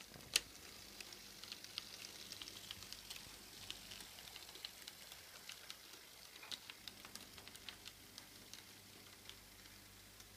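H0-scale model diesel locomotive's wheels clicking and ticking over the rail joints and points of a model railway layout as it rolls along, in a fast, uneven patter with one sharper click about half a second in. A faint steady hum lies underneath.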